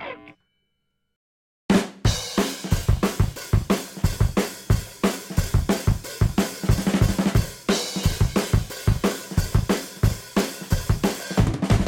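Background music: after a second and a half of silence, a fast rock drum-kit beat starts, with kick drum, snare, hi-hat and cymbals hitting in a quick steady pattern.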